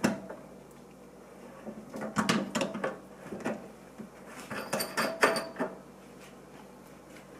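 Pliers working the large nut on a kitchen faucet valve, which is then lifted off by hand: sharp clicks and small metallic clinks in two clusters, about two and five seconds in, the later ones briefly ringing.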